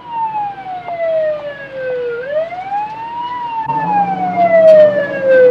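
Emergency vehicle siren wailing, its pitch sliding slowly down and then back up, about twice. A steady low hum joins a little past halfway.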